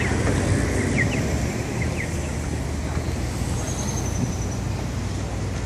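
Street traffic: a steady low engine rumble from cars passing through an intersection, with a few short high chirps in the first two seconds.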